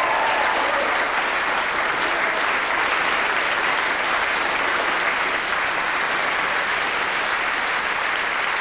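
A small audience clapping steadily: applause at the end of a song.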